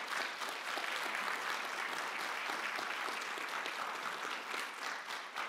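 Congregation applauding: many people clapping together in a dense patter that begins to thin out near the end.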